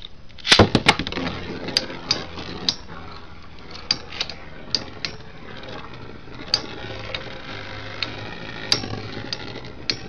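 Two Beyblade Metal Masters spinning tops, Earth Eagle and Evil Befall, launched into a plastic stadium with a burst of sharp clacks about half a second in, then the steady whir of the tops spinning, broken by sharp clacks as they strike each other every half second to a second.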